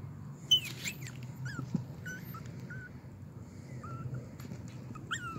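Pomeranian puppy giving short, high-pitched whimpers, with a sharp yip about half a second in, over a low steady hum.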